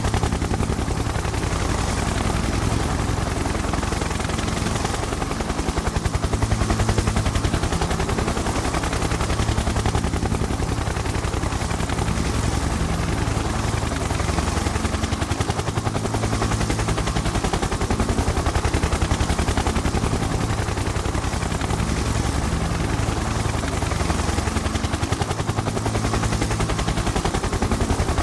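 Helicopter rotor chopping steadily, a fast even beat of blade thumps over a low engine drone.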